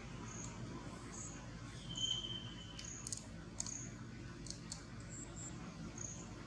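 Quiet outdoor ambience: a faint high chirp repeats about every three-quarters of a second, with one longer high whistle about two seconds in and a few sharp clicks near the middle.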